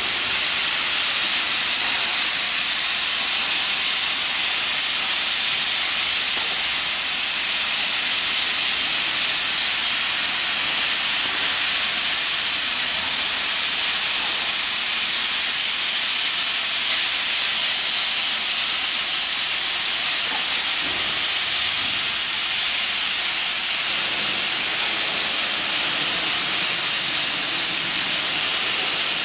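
Sandblasting nozzle spraying abrasive against concrete: a loud, steady hiss of compressed air and grit.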